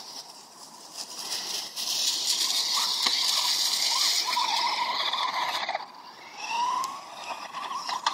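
Radio-controlled truck driving close by over dry fallen leaves: a loud rustling crackle from about two to six seconds in, with the truck's motor whine rising and falling in pitch through it.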